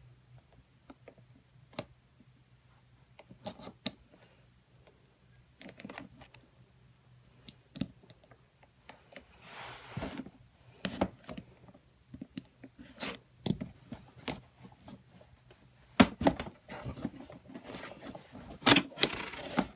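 Screwdriver tip slitting and prying open a cardboard box: scattered scrapes and clicks of metal on cardboard, with a longer scrape about halfway through and busier, louder scraping and knocking over the last few seconds.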